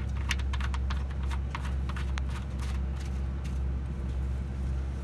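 Brass drain plug being screwed by hand into the boat's transom drain hole below the sterndrive: a run of irregular small clicks and ticks, over a steady low rumble.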